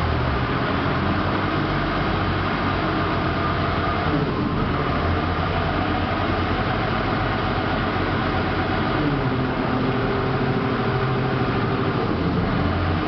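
Caterpillar forklift's engine running steadily at low speed while the forklift is driven slowly.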